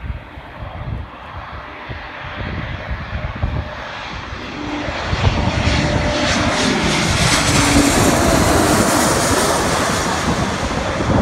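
Twin-engine jet airliner on final approach with its landing gear down, passing low overhead. The jet noise grows louder from about halfway in and is loudest near the end, with a faint steady whine in it.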